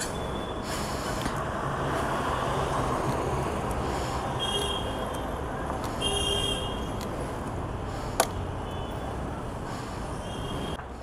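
Street traffic noise with a few short, high vehicle horn toots spread through it, and one sharp click about eight seconds in.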